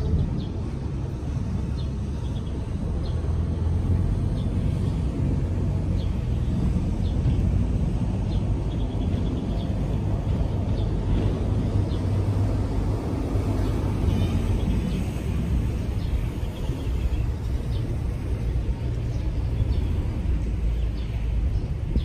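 Steady low rumble of outdoor street ambience, with faint short high chirps now and then.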